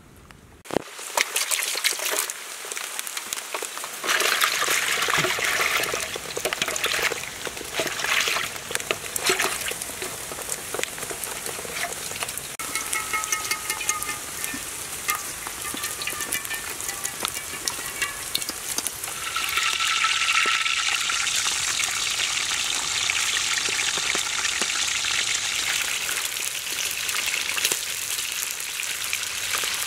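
Hot oil sizzling and crackling hard in a wok as whole baby crocodiles deep-fry in it. The sizzle starts just under a second in and becomes denser and louder about two-thirds of the way through.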